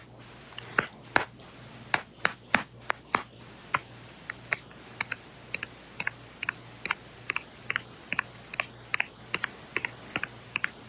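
Fingers tapping on a phone's touchscreen while typing, an uneven run of light clicks several times a second.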